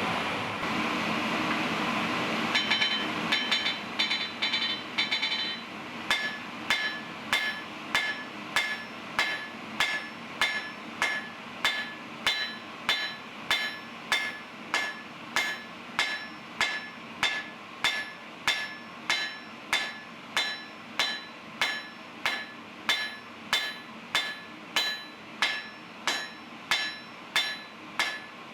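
Hammer blows on steel over an anvil while forging a jackhammer bit, each blow a sharp ringing clang. It opens with a steady rushing noise, then a quick flurry of blows a few seconds in, then settles into an even beat of about one and a half blows a second.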